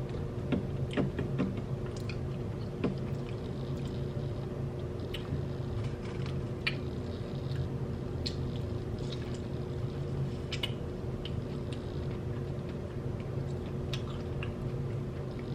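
A person chewing food close to the microphone, with scattered small mouth clicks, over a steady low hum.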